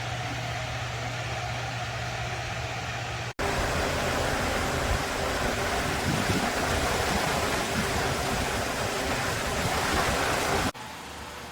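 16-inch wall-mounted electric fan running: a steady rush of air over a low motor hum. The rush is louder from about three seconds in until near the end, with sudden cuts between the levels.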